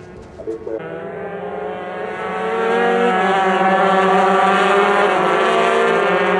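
KTM 125 cc single-cylinder two-stroke race bike engine running at high revs. It holds a steady high pitch that swells louder over the first two or three seconds and dips slightly in pitch about three seconds in.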